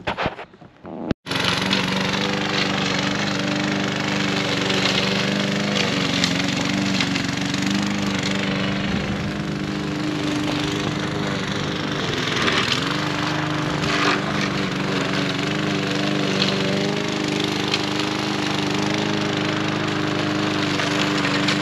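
Gasoline walk-behind rotary lawn mower engine running steadily while cutting grass, its pitch dipping briefly about halfway through.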